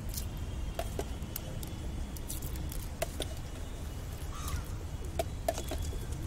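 Scattered light clicks and taps of plastic toys and a plastic scoop being handled, over a steady low rumble.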